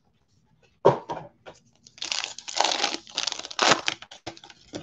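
Foil wrapper of a Panini Illusions football card pack being torn open and crinkled: one sharp crackle about a second in, then a longer run of crinkling and tearing.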